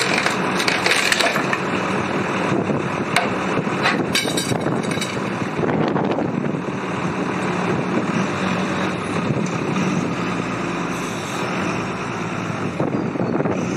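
Wheel loader diesel engine running while its bucket bears down on a long bar fitted to the engine's seized crankshaft pulley bolt, with the wooden blocks under the engine cracking and crunching under the load. The sharpest cracks come about a second in and again around four seconds in.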